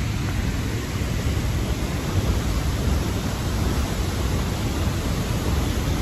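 La Paz Waterfall: falling water makes a steady, loud rush.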